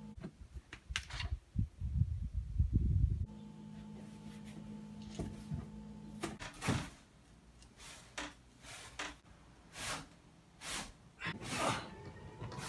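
A large cardboard box being hauled through a doorway and set down on carpet: low thuds and knocks in the first few seconds, then a string of brief scraping and rustling noises from the cardboard.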